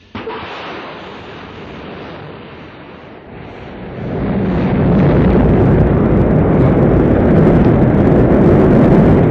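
Rocket engine roar at launch: a rushing noise starts abruptly, then swells about four seconds in into a loud, steady, low rumble.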